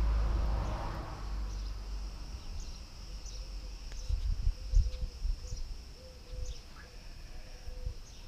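Steady high-pitched drone of insects, with short bird chirps scattered through it and an irregular low rumble on the microphone that swells a few times around the middle.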